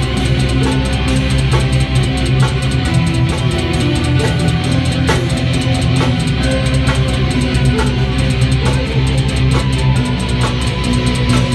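A metal band playing live in a rehearsal room: electric guitars and a drum kit together, loud and continuous, with rapid cymbal strokes over the top.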